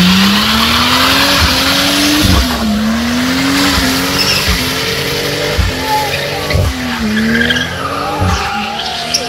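A car drifting with its tyres squealing. The engine revs climb over the first couple of seconds, then rise and drop sharply again and again as the throttle is worked.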